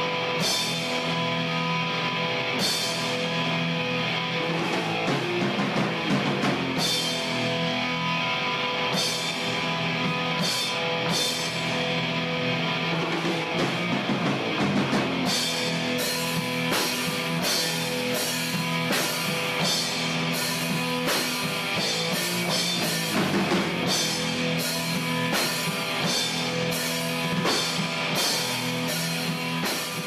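Heavy metal intro music: distorted electric guitar over a drum kit, with the drum hits coming more densely and regularly from about halfway through.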